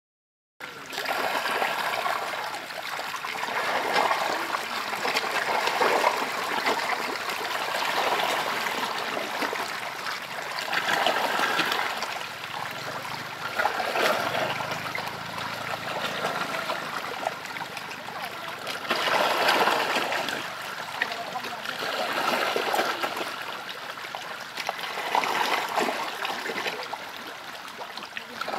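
Water splashing and churning as a dense crowd of catfish thrash at the surface, swelling and easing in waves every few seconds.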